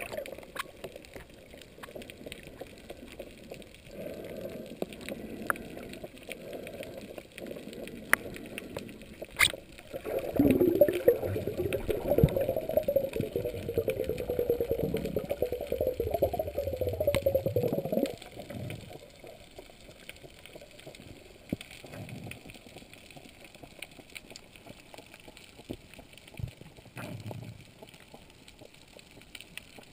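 Underwater water noise picked up by a camera in a waterproof housing: muffled gurgling and sloshing. It swells into a much louder, wavering gurgle for several seconds in the middle, then drops back.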